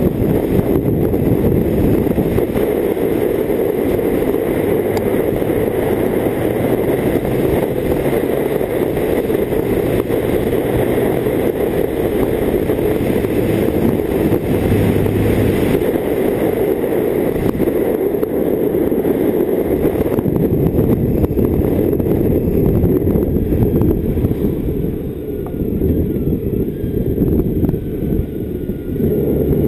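A BMW K1600GT's inline-six engine at steady road speed, under a heavy rush of wind on the microphone. The rush eases a few seconds before the end as the bike slows, then builds again.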